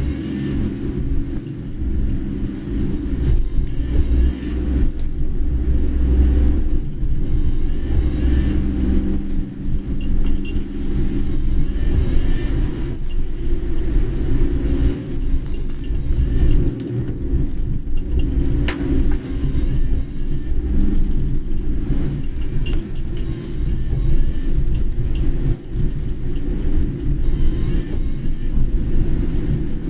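A car driving: a steady low rumble of engine and tyres on the road.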